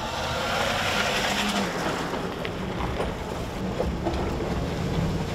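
Pickup truck driving on a gravel road, heard from inside the cab: a steady rumble of engine and tyres, with a few scattered clicks.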